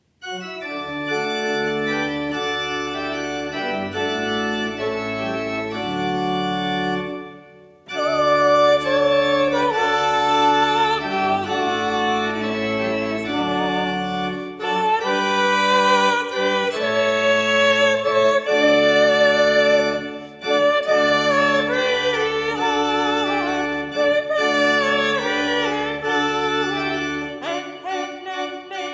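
Church organ playing music of sustained chords over held bass notes. After a brief break a little under eight seconds in, it comes back louder, with a melody moving above the chords.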